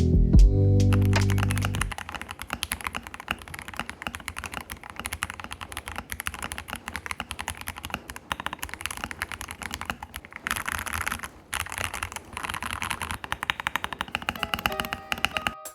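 Rapid, continuous typing on a modded Royal Kludge RK68 mechanical keyboard, with a brief pause about two-thirds of the way through. Music plays for the first two seconds before the typing starts.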